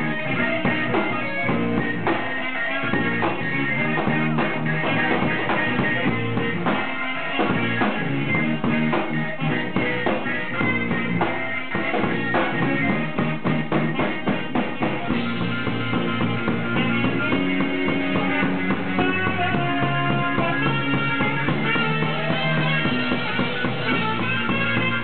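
Live rock band playing: drum kit, saxophone, guitar and a Roland XP-80 synthesizer keyboard, in a steady full-band passage with held notes toward the end.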